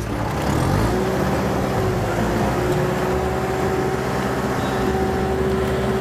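Kubota compact tractor's diesel engine running steadily under load as it pulls a potato plow deep through the soil, with a steady whine over the engine note.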